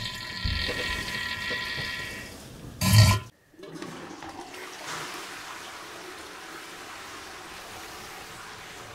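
Toilet flushing with rushing water, then a sharp thump about three seconds in, followed by a quieter steady hiss of water, like a cistern refilling.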